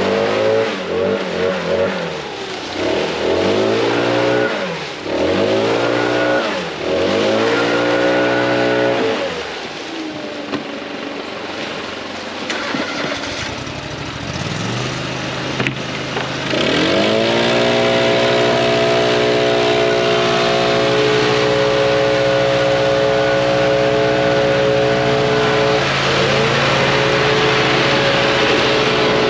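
Vehicle engine pulling up through the gears, its pitch climbing and dropping again several times, then easing off. About fifteen seconds in it climbs once more and settles into a steady cruising drone.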